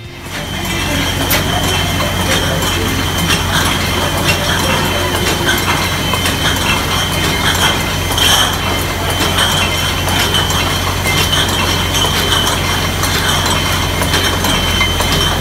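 Mobile wine bottling line running. Glass wine bottles clink and clatter against each other and the rotary filler's star wheels, with many sharp clicks over a steady machine hum and a steady high whine.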